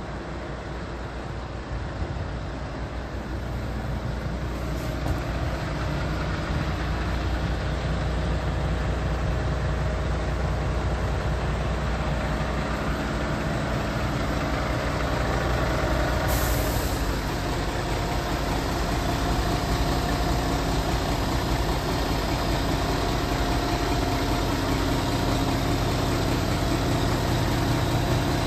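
Scania R480's inline-six diesel engine idling steadily. It grows louder over the first few seconds.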